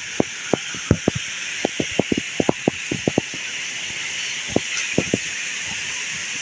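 Steady rushing hiss of a forest waterfall, with many short, irregular low knocks over it, bunched in the first few seconds and a few more a little later.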